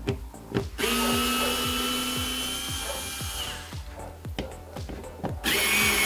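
Cordless screwdriver with a T25 Torx bit backing out the screws of a car door's window regulator motor. It runs with a steady whine for about two and a half seconds, then stops with a few clicks, and starts again near the end for the next screw.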